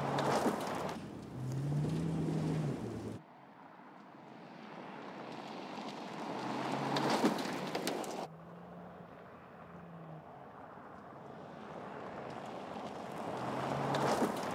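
2023 Mercedes-Benz GLC driven fast on a dirt track, its tyres spraying gravel and dirt, with the engine note rising under throttle. The sound swells and fades three times, and changes abruptly about three seconds in and again about eight seconds in.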